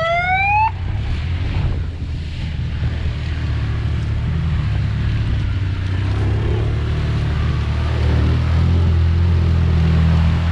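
Off-road vehicle engine idling with a steady low drone that grows louder toward the end, with wind on the microphone. A short tone rising in pitch sounds in the first second.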